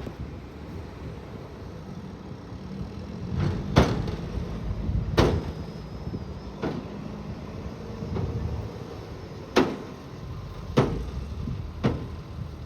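Doosan DX220 hydraulic excavator's engine running steadily at work, with six sharp clanks spread irregularly over the working noise.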